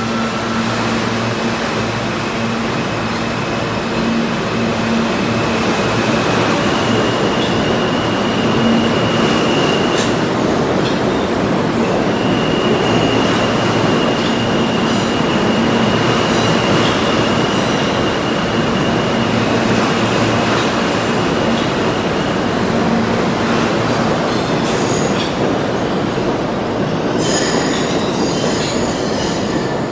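R160 subway train running past at speed through the tunnel, a loud steady rumble of wheels on rail with long, drawn-out high-pitched wheel squeal over a low steady hum. In the last few seconds a quick run of sharp clicks comes as the wheels pass over rail joints.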